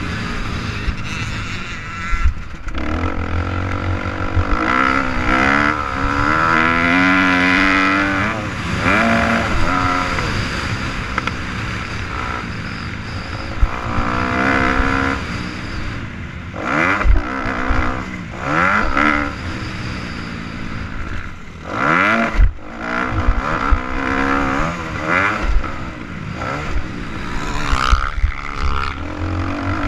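Motocross bike engine revving hard and dropping back again and again as it is ridden around a dirt track, its pitch rising and falling with throttle and gear changes. Heard from a helmet-mounted camera, with wind rushing over the microphone and several sharp knocks in the second half.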